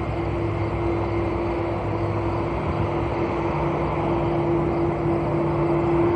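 Airbus A330-200's jet engines running at taxi power as the airliner rolls along the taxiway after landing: a steady rumble with a constant hum running through it.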